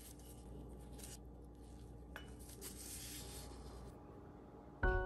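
Faint rubbing and light handling noises from gloved hands working rolled cookie dough with a metal cookie cutter and moving cut cookies, with a small click about two seconds in. Soft bell-like music comes in just before the end.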